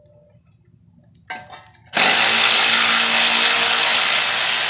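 A short metallic clatter, then a handheld power tool running steadily for about three seconds, spinning out a rusty tailpipe-to-muffler bolt.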